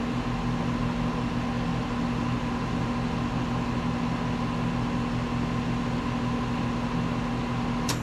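Carrier WeatherMaker heat pump outdoor unit running in heating mode with a steady hum and fan noise. Near the end a click sounds and the hum cuts out as the unit switches into its defrost cycle.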